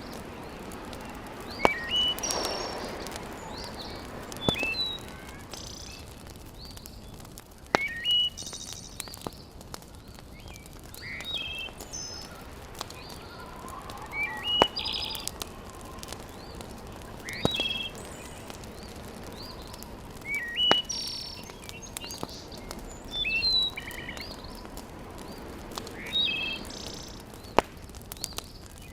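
Birds chirping in short repeated calls every few seconds over the steady hiss of a wood fire in a fireplace, with a handful of sharp crackling pops from the burning logs.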